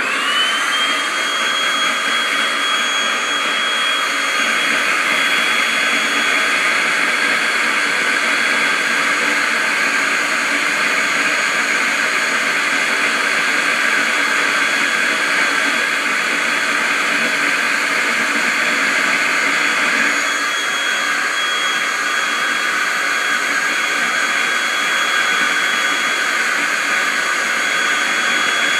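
Vacuum cleaner running: its motor spins up right at the start, then holds a steady high whine over a loud rushing noise.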